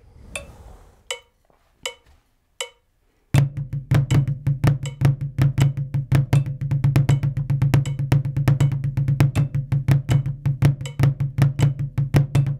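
Four clicks counting in at about 80 beats per minute, then drumsticks playing a fast sticking exercise on a practice pad: flams followed by six-stroke rolls, dense and even, over a steady low drum beat underneath.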